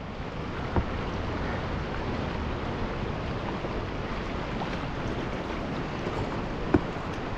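Steady rush of river water below a dam drop, with two short knocks, a small one about a second in and a louder one near the end.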